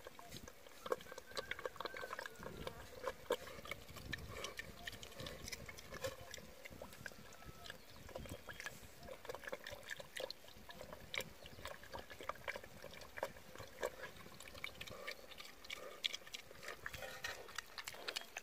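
A pig eating wet mash from a bowl: a busy, irregular run of wet slurps, chomps and smacks.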